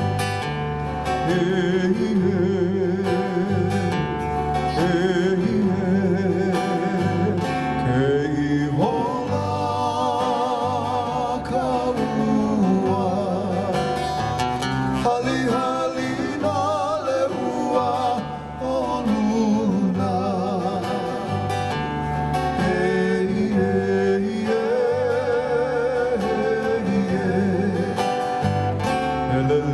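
Hawaiian song with plucked guitar accompaniment and a wavering, vibrato-laden melody line over a steady bass.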